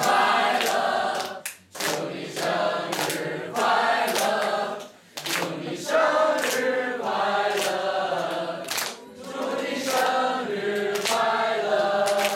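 A group of people singing together in unison, with hand claps mixed in.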